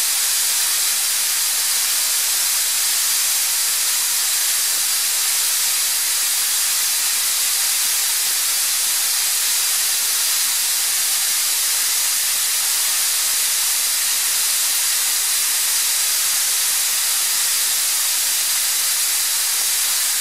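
Atlas Copco ZR 400 two-stage oil-free screw air compressor running loaded at about 7.5 bar, a loud, steady, high hiss.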